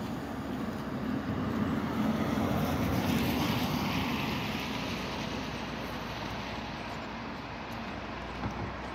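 Diesel locomotive running slowly as it approaches, its engine a low steady drone that swells for the first few seconds, mixed with the tyre noise of road traffic passing.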